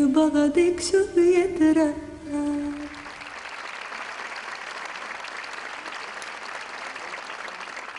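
A woman's voice sings a slow melodic line that ends on a held note about three seconds in. The audience then applauds steadily, and the applause starts to fade near the end.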